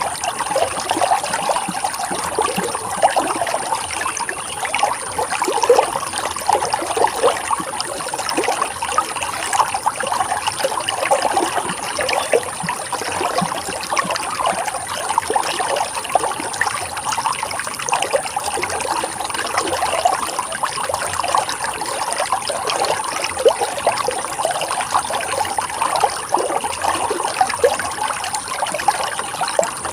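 Running water flowing steadily, a continuous babble of many small splashes and trickles.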